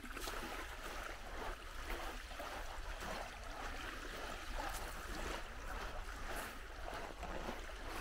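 Small waves lapping and washing steadily along a sandy shoreline.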